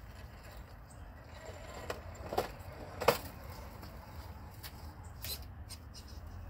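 Redcat Gen8 RC rock crawler knocking and clattering as it drops nose-first off a wooden plank onto rocks, with two sharp knocks about two and a half and three seconds in, the second the loudest. Lighter clicks follow near the end, over a low steady rumble.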